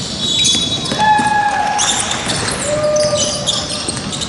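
Basketball being dribbled on a hardwood court, with sneakers squeaking in several short, high chirps as players cut and shift.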